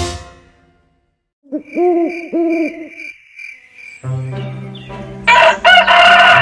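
Owl hooting about three times over chirping crickets, then, about five seconds in, a rooster crowing loudly.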